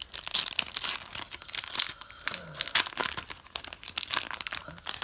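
A hockey card pack wrapper being torn open and crinkled by hand: a dense, irregular run of crackling rustles.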